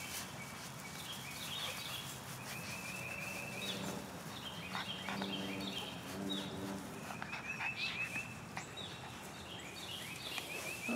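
Wild songbirds singing, with short trilled and chirping phrases repeating every couple of seconds. A low, steady tone runs for about three seconds in the middle.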